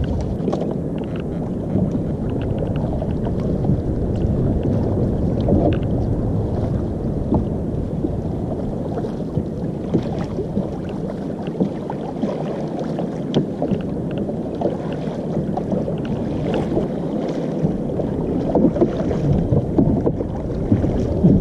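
Sea water lapping and splashing around a small wooden rowing boat as a wet net is hauled aboard, with many small splashes and knocks scattered through a steady low wash of water and wind.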